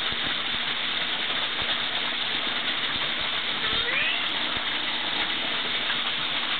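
Steady rushing of water, with low thumps of wind on the microphone; a short, faint rising call about four seconds in.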